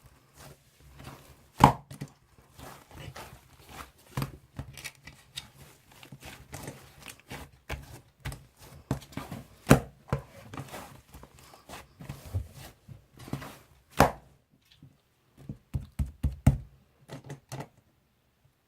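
Foam slime being squished and poked by hand, giving an irregular run of small crackling clicks and pops, with a few much louder snaps.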